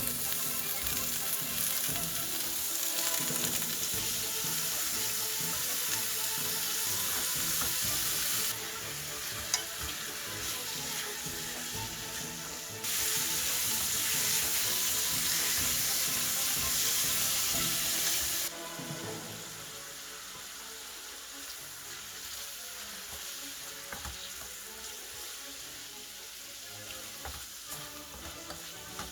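Food sizzling as it fries in a hot pan, cut into several shots: the sizzle drops abruptly about a third of the way in, comes back louder, then settles quieter for the last ten seconds.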